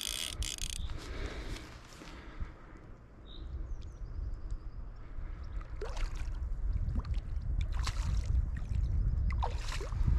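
Hooked rainbow trout splashing at the water surface as it fights the line, a few sharp splashes at the very start and several more in the second half, over a steady low rumble.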